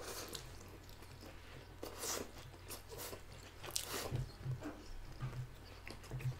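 Quiet close-up eating sounds of spaghetti in tomato sauce: noodles slurped in and chewed, with a few soft clicks of wooden forks against the plates.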